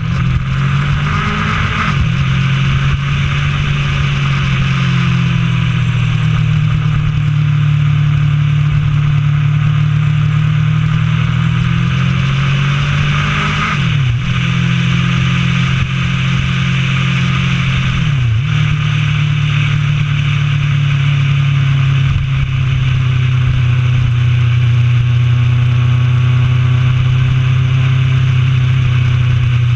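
Honda CB1000R's inline-four engine running steadily at cruising revs under way, over a steady rush of wind. About halfway through, and again a few seconds later, the engine pitch dips sharply and climbs straight back.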